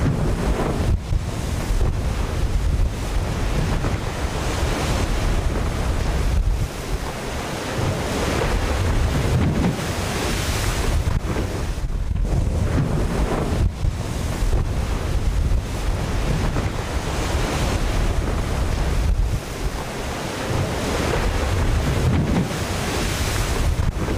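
Wind buffeting the microphone over the rush of water and spray past the hulls of the maxi trimaran Banque Populaire V sailing fast through rough sea. There is a heavy low rumble, and the noise swells and eases every few seconds.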